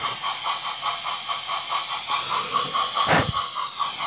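Dapol Gresley A4 model steam locomotive's sound decoder playing a steady run of steam chuffs, about six a second, over a hiss. A single sharp knock about three seconds in.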